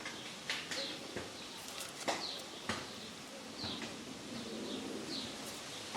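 Chickens calling: short, slightly falling high peeps about once a second, with a low pitched clucking near the middle and a few sharp taps.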